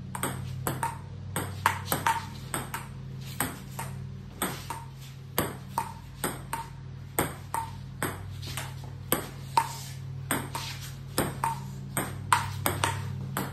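Celluloid-type table tennis balls being hit by a paddle and bouncing on the table in a fast rally: a quick, uneven string of sharp pings and clicks, about two to three a second, over a steady low hum.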